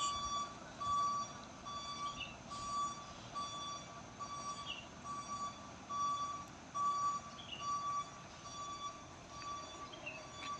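Truck's reversing alarm beeping steadily, about two short beeps a second: the truck is backing down the climb, which the narrator puts down to it having slipped.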